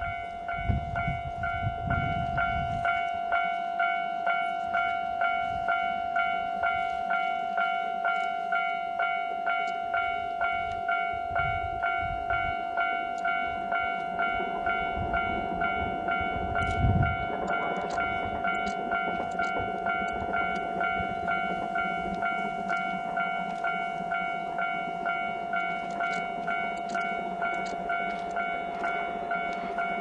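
Japanese railway level crossing alarm ringing in a steady, fast repeating electronic ding, switched on right at the start, as a steam locomotive approaches. A brief heavy low blast about halfway through, then the rumble of the train grows under the bell.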